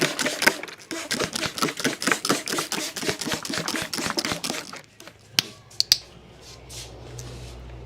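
A barber's hands slapping and tapping rapidly on a head during a head massage, about seven strokes a second, stopping about five seconds in. A few sharp clicks and a low hum follow near the end.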